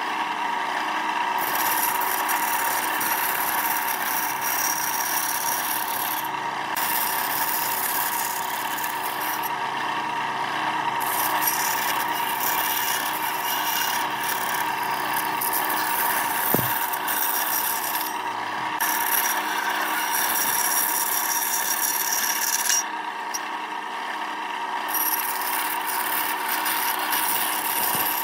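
Wood lathe running steadily while a tool scrapes against the spinning wood. The scraping drops out briefly several times, and there is one sharp knock about halfway through.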